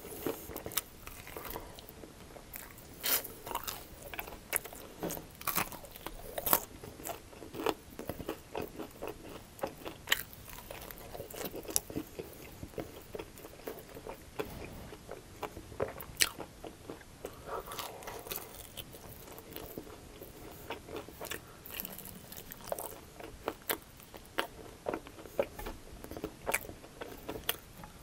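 Close-up biting and chewing of crunchy sauced chicken wings: the crisp breading cracks and crackles in quick, irregular bursts with each bite, between wet chewing.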